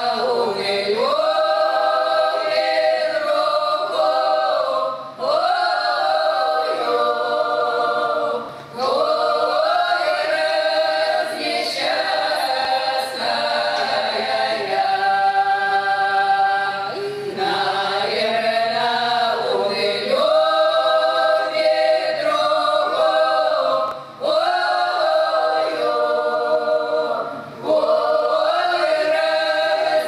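Women's folk ensemble singing a Russian folk romance a cappella, in long drawn-out phrases with a few short gaps between them.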